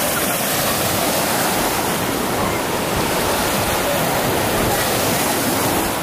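Small lake waves breaking and washing onto a sandy shore, a steady rushing surf.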